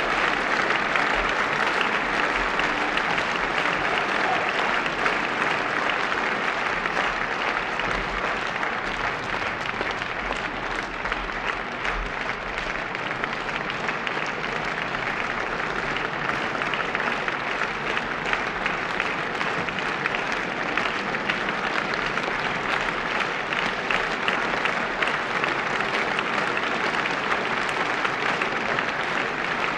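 Theatre audience applauding, a dense, even clapping.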